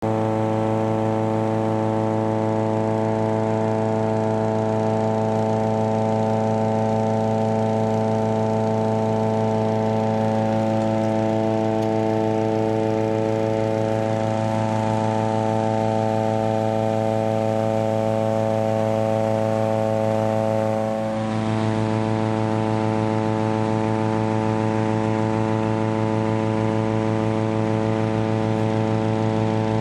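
Petrol-engine inflator fan running at a steady speed, blowing cold air into a hot-air balloon envelope during ground inflation. There is a brief dip in level about two-thirds of the way through.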